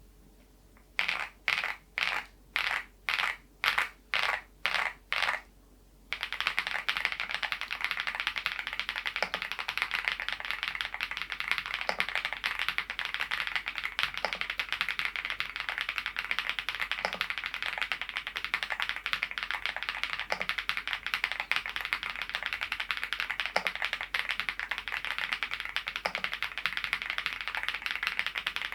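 Mechanical keyboard with thick PBT Cherry-profile keycaps being typed on: first a run of short, quick flurries of key strikes, about two a second, then from about six seconds in, steady fast typing.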